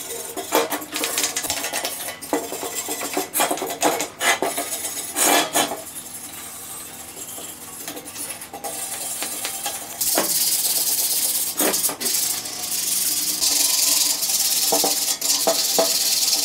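Hand brush scrubbing the rusty, painted steel frame of an old vegetable slicer in short, uneven scraping strokes, with the odd knock of the metal. About ten seconds in the strokes become faster and steadier.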